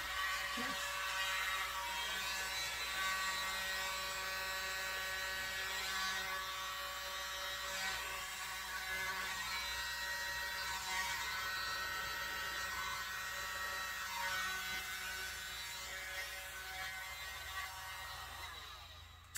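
Small handheld electric air blower running with a steady whirring whine, blowing out wet acrylic paint. It winds down and stops shortly before the end.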